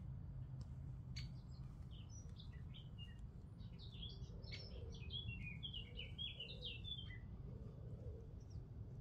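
A songbird singing: scattered high chirps, then a quick, dense run of twittering notes from about four to seven seconds in, over a low steady rumble.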